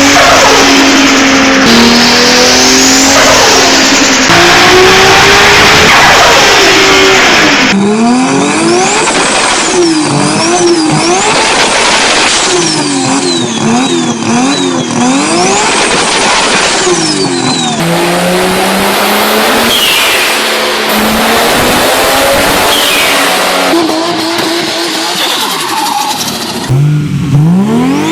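Engines of modified cars revving hard in three separate recordings spliced together. The engine pitch climbs and drops again and again as the cars accelerate and change gear, with fast up-and-down sweeps in the middle recording.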